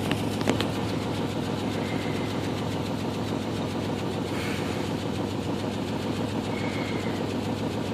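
Ford Ranger's 2.9-litre V6 idling roughly with a steady but uneven, pulsing beat: a rough idle that the owner calls really bad and cannot explain.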